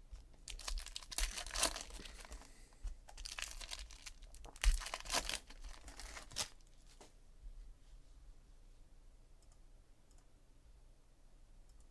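Foil trading-card pack wrappers crinkling and tearing as packs are opened and the cards handled, in irregular bursts that stop about six and a half seconds in.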